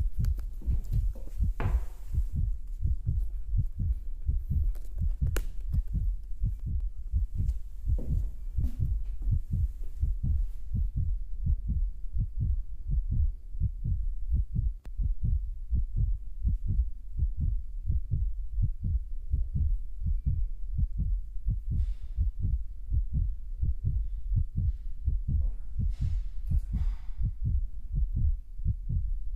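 Continuous low, irregular thumping rumble, several thumps a second, with a few faint clicks and brief hissy rustles.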